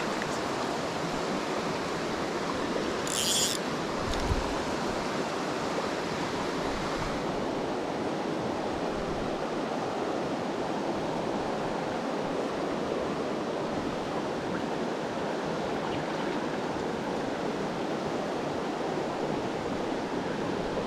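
Steady rushing of a fast-flowing mountain river, with a brief high hiss about three seconds in and a soft low thump a second later.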